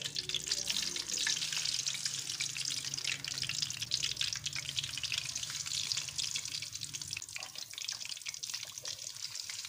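Besan-batter-coated fish pieces frying in hot oil in a karahi: a steady crackling sizzle with many small pops.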